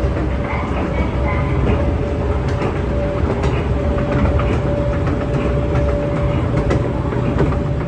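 Toshiba escalator running: a steady rumble from the moving steps, with a constant hum and scattered light clicks.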